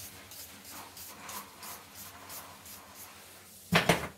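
Light scraping or rubbing strokes, about three a second, then a loud double knock near the end.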